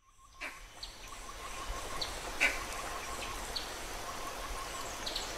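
Outdoor ambience fading in over the first second: a steady hiss with short, high bird chirps now and then, and a faint fast ticking at about five a second.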